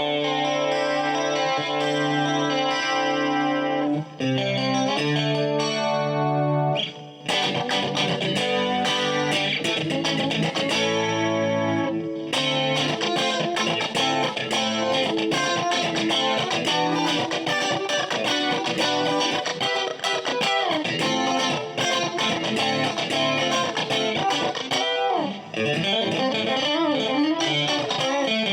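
Morgan Legend Series Strat-style electric guitar, ash body, played with a clean tone. Held chords ring for the first several seconds, then give way to quicker single-note lines, with bent notes near the end.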